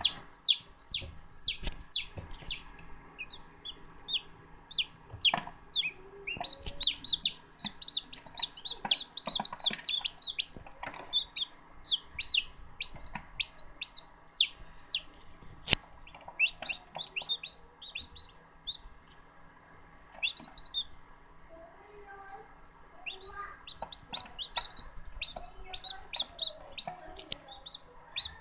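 Newly hatched chicks (Korean green-egg chickens, 청계) peeping: quick runs of short, high, downward-sliding cheeps with brief pauses between runs, over a faint steady hum. A single sharp click sounds a little past halfway.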